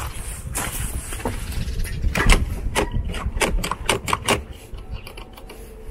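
A quick run of sharp knocks, about three or four a second, starting about two seconds in and growing fainter toward the end, over a low rumble.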